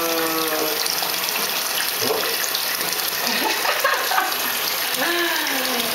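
Bathwater splashing and sloshing continuously as a floating baby kicks its legs in a bathtub. A few short falling pitched sounds come near the start and again about five seconds in.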